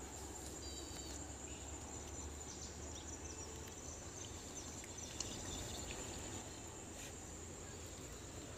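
Insects chirring steadily at a high pitch, with a few short chirps about a second in and a low rumble underneath.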